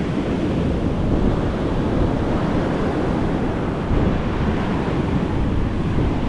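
Strong wind buffeting the microphone with a low, uneven rumble, over the steady wash of rough ocean surf breaking on the beach.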